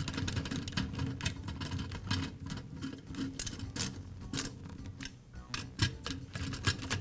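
A nut driver tightening the heater motor's mounting nuts inside a sheet-metal fan housing makes a run of irregular light metallic clicks and rattles as the tool turns and the housing is handled.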